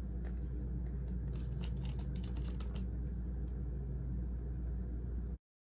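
A run of quick, light clicks and taps from hands handling a lace front wig at the hairline, over a steady low hum. The sound cuts out abruptly near the end.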